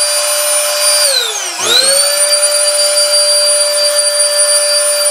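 O2 Hurricane rechargeable canless air duster, its electric motor and fan running at full speed with a steady high whine. About a second in it is switched off and winds down, then it spins back up about half a second later and runs steadily again.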